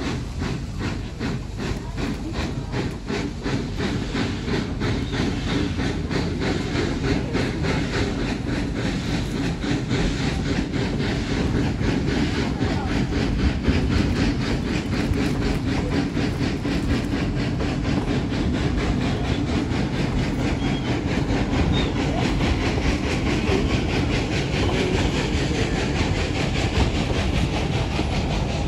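Two narrow-gauge Durango & Silverton steam locomotives, running double-headed, working a passenger train: a steady run of even exhaust chuffs over the rumble and clatter of wheels on rail, growing a little louder over the first ten seconds or so.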